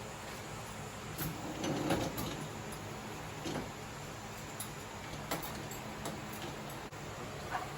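Scattered light clinks and knocks of utensils and small dishes being set into the racks of a tabletop dishwasher, over a steady low background hum.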